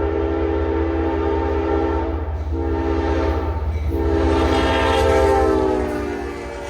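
Diesel locomotive horn sounding a chord in three blasts. The third blast is the longest and loudest and drops in pitch near the end as the locomotive passes. The horn sounds like what railfans call a fouled horn, and a low locomotive rumble runs underneath.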